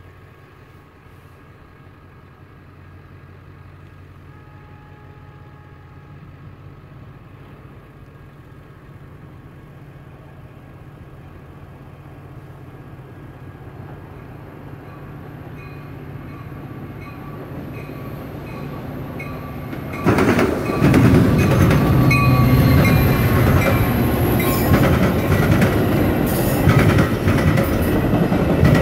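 Metra commuter train approaching, growing slowly louder, then about 20 seconds in passing close by at speed, its bilevel cars' wheels pounding over a railroad diamond crossing in a rapid, loud clatter.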